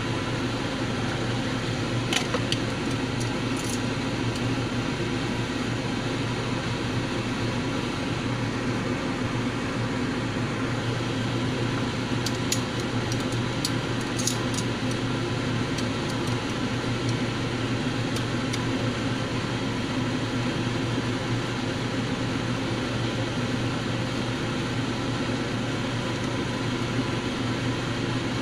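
Steady hum and hiss of a portable gas stove burning under a pan of boiling water, with a few light clicks scattered through.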